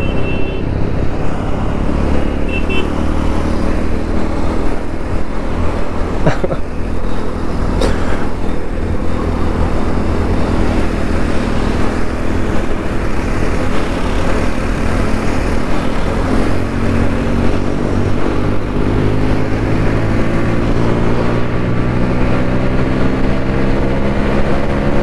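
Motorcycle engine running on the road at a steady pace, its note rising gradually over the second half as the bike speeds up.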